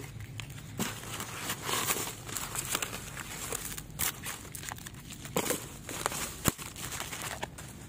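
Plastic bags crinkling and rustling as a hand rummages through trash, with sharp clicks and clacks of discarded phones and metal phone frames knocking against each other; the sharpest click comes near the end.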